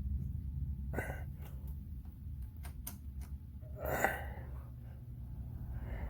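Hurricane 20-inch box fan running, a steady low rumble of moving air, with a few sharp clicks about a second in and over the next couple of seconds, and a short rushing noise around four seconds in.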